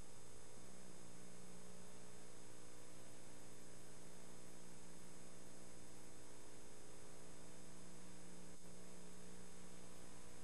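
Steady electrical mains hum with a hiss underneath, with a faint tick late on; no speech or music.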